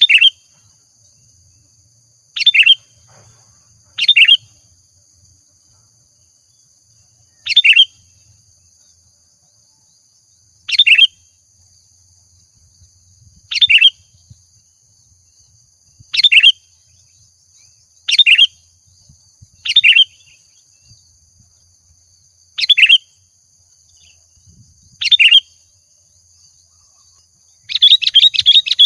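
Sooty-headed bulbul (kutilang) giving short, sharp chirping phrases every two to three seconds, about eleven in all, then a rapid run of calls near the end.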